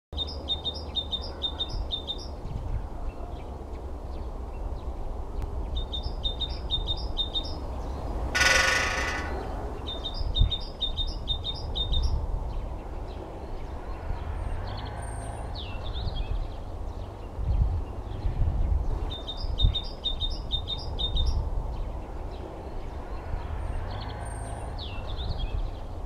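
Great spotted woodpecker drumming once on a power-line pole: a single rapid roll lasting about a second, with a ringing tone, about a third of the way in. Around it another small bird sings a short phrase of quick high notes four times, over steady low background noise.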